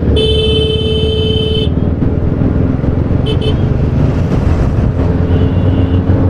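Vehicle horn sounding while riding: one long blast of about a second and a half near the start, then two short toots about three seconds in. Under it runs the steady engine and road noise of a moving Yamaha Ray ZR scooter.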